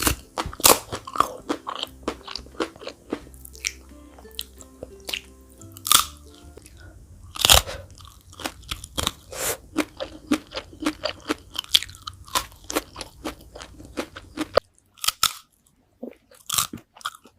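Close-up crunching and chewing of crispy fried chicken feet, a rapid run of sharp crunchy bites with a few louder cracks. Soft background music with low notes runs under it and stops about three-quarters of the way through, leaving the chewing alone.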